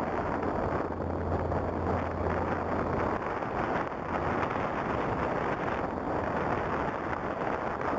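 Cessna 150's four-cylinder air-cooled engine and propeller at full takeoff power as the plane lifts off and climbs away. Its low drone fades about three seconds in, and wind buffets the microphone.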